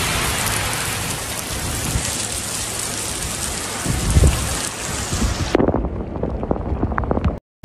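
Heavy rain pouring onto flooded ground, a dense steady hiss. Low rumbles come in about four seconds in, and the sound turns duller and gustier. It drops out to silence briefly just before the end.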